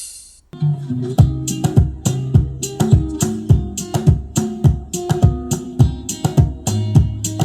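Guitar-led music with a steady drum beat, starting about half a second in after a brief break, played as a test track through a 6.5-inch two-way coaxial car speaker under comparison.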